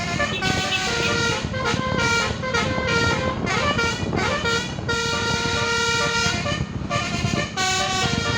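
Basuri telolet multi-tone bus horn playing a tune of held notes that change pitch in steps. About four seconds in it makes a siren-like sweep that falls and then rises again. Steady low noise runs underneath.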